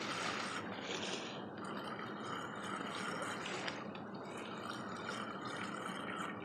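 River water running steadily, an even, continuous wash of flowing current.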